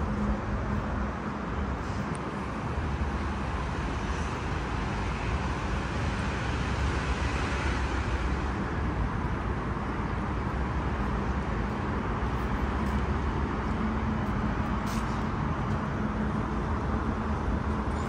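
Road traffic: a steady rush of passing cars, with one vehicle swelling past in the middle and a low engine hum near the start and again toward the end.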